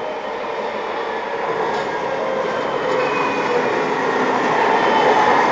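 DÜWAG low-floor tram approaching on its track, its running noise growing steadily louder as it nears, with a faint steady whine.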